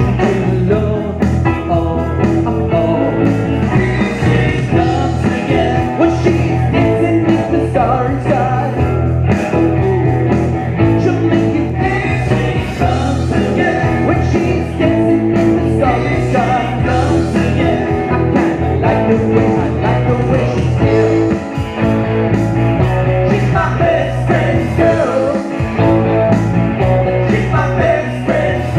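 Live rock band playing: electric bass, electric guitar, keyboard and drums, with a man singing lead vocals into a microphone.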